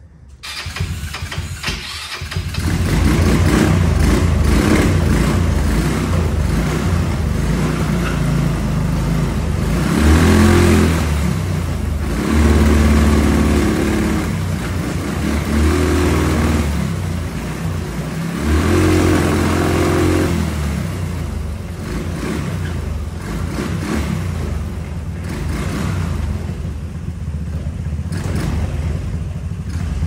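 Hammerhead GTS buggy's 150cc GY6 single-cylinder four-stroke engine starting within the first couple of seconds, then running steadily. It is revved up briefly four times. It now fires on a newly fitted AC-fired wiring harness and CDI that restored its spark.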